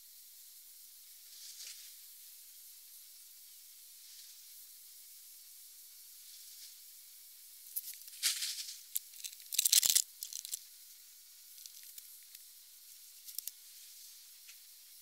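Faint steady outdoor hiss, broken about eight to ten seconds in by a cluster of short, rough rustling and scraping noise bursts, the loudest near the ten-second mark, with a few small clicks afterwards.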